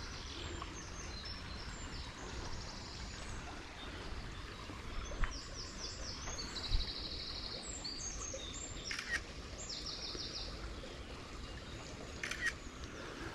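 Small woodland songbirds singing, with repeated chirps and short trills, over a steady low background noise.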